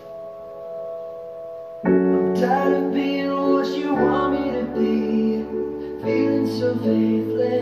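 Background music: a soft held keyboard chord, then about two seconds in the full song comes in louder, with piano and a bass line that changes note every couple of seconds.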